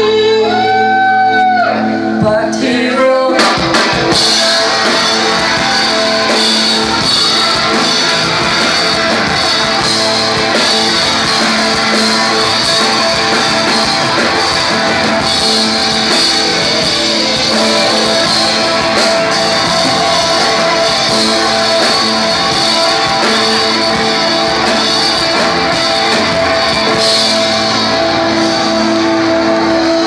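Live rock band playing loud: electric guitars, bass and drums with a woman singing. It opens on a few held notes, then about three seconds in the whole band comes in and plays dense and full to the end.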